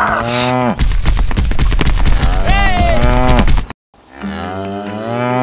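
Cattle mooing. A long moo drops in pitch, then a deep, rough moo lasts about three seconds and cuts off suddenly. After a short gap comes another long moo that falls in pitch at its end.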